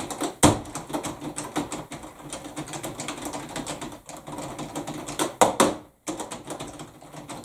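Rapid, irregular clicking and tapping of fingers working at a small boxy device, like typing, with a louder knock shortly after the start and two loud knocks in quick succession about five and a half seconds in.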